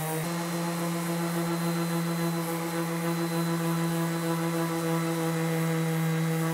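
Random orbital sander running steadily as it sands a pallet-wood tabletop, giving an even motor hum.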